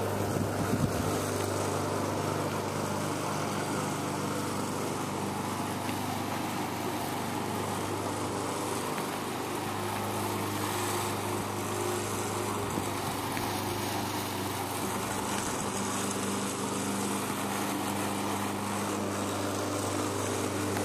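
A small engine running steadily, a constant drone with no change in speed.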